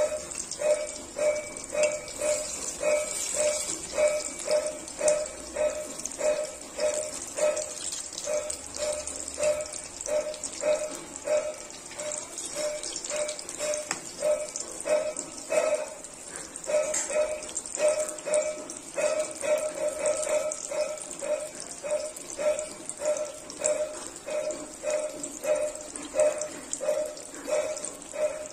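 Oil sizzling steadily as slices of brinjal fry in a wok. Over it runs a regular string of short pitched pulses, about two a second, louder than the sizzle.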